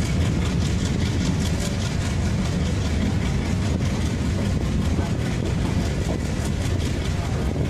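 Passenger train running, heard from an open carriage window: a steady rumble of the carriage wheels on the rails.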